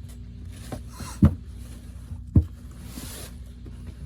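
Jerseys being handled: soft rustling with two short dull thumps about a second apart, over a steady low hum.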